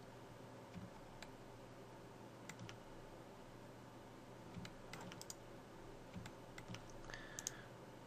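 Faint, scattered clicks of a computer mouse and keyboard, a dozen or so, coming more often in the second half, over a low steady hum.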